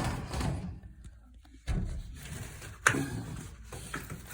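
New furnace air filter being slid into its slot: the frame scrapes and rubs against the slot, with a couple of knocks, the sharpest about three seconds in.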